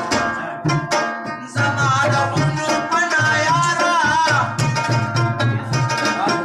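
Live Pashto tappay folk music: a steady drum beat under a sustained melody, with a wavering melodic phrase between about one and a half and four and a half seconds in.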